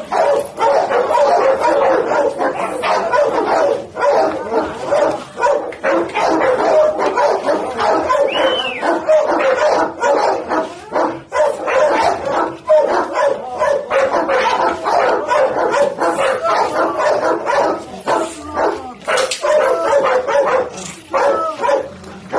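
Pit bull barking over and over without a break, bark after bark.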